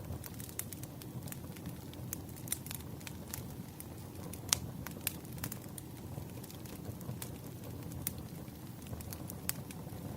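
Campfire burning: a steady low rumble of flames with irregular sharp crackles and pops of burning wood, one louder pop about halfway through.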